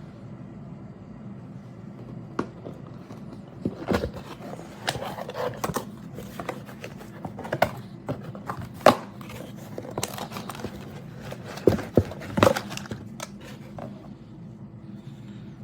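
Handling noise: scattered clicks, knocks and rustling as a tool and its packaging are handled, over a steady low hum.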